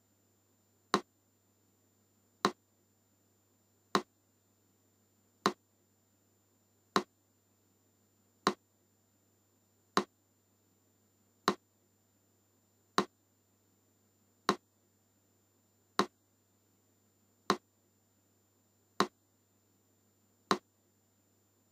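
Metronome ticking slowly and evenly: one sharp click every second and a half, about 40 beats a minute.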